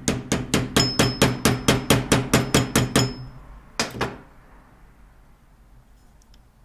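Rapid metal-on-metal tapping on the parts of a hydraulic jack, about six sharp taps a second for three seconds with a high ringing note, then one more knock about a second later.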